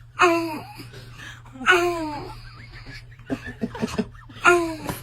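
Three short voiced outbursts of a young child's voice, each starting sharply and falling in pitch, about a second and a half apart, with a few soft clicks between the second and third.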